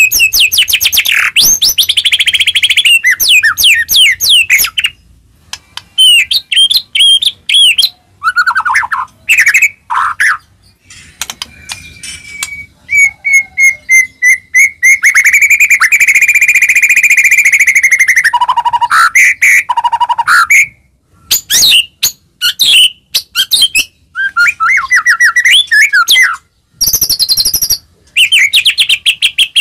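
White-rumped shama singing in loud, varied bursts of rapid whistles and trills broken by short pauses, with one long held whistle near the middle.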